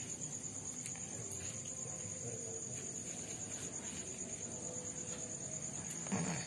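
A steady, high-pitched insect trill, like a cricket's, running on without a break.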